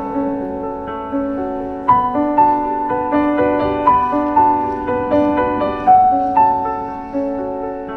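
Slow, gentle solo piano music: single notes and chords struck one after another, each ringing and fading.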